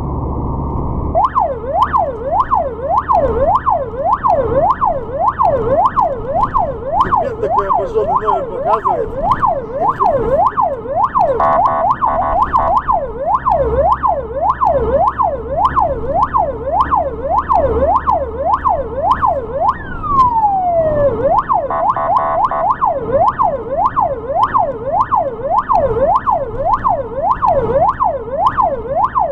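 Ambulance siren in a fast yelp, wailing up and down about two and a half times a second. Two short blaring bursts cut in around twelve and twenty-two seconds in, and one long downward sweep comes shortly before the second burst, over a low rumble of engine and road.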